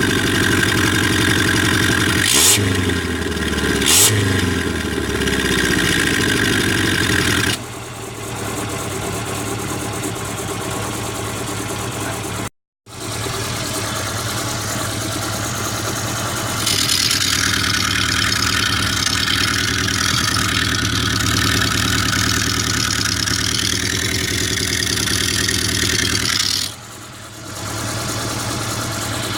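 An Opel car engine runs through an exhaust fitted with a homemade lever-operated cutout valve. It is blipped twice with quick revs a few seconds in. After that the exhaust note drops and rises in loudness a few times, and the sound cuts out for a split second about halfway through.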